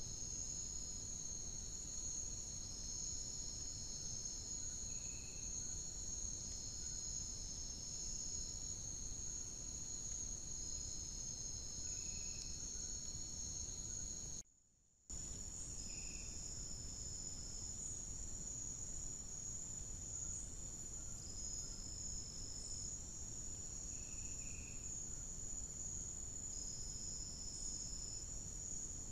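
Night insect chorus of crickets picked up by a trail camera's microphone: several steady high-pitched trills at once, with a shorter trill repeating every two seconds or so, over a low hiss. The sound cuts out for about half a second midway.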